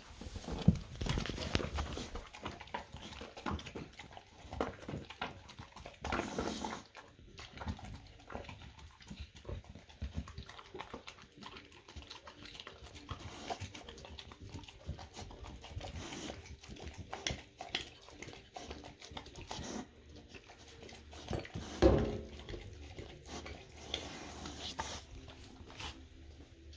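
A boxer dog eating egg off a plate on the floor: steady, irregular chewing, smacking and licking, with the plate knocking and sliding as she pushes it with her muzzle. A sharp louder knock comes just after the start and another about three quarters of the way through.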